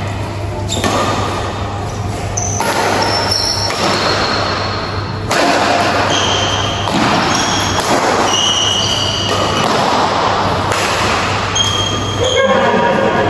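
Badminton doubles rally: rackets striking the shuttlecock and short high squeaks of shoes on the court, over a steady low hum.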